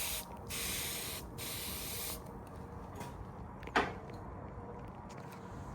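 Three short bursts of spraying hiss, each under a second, in the first two seconds, then a single sharp sound sliding down in pitch a little past the middle.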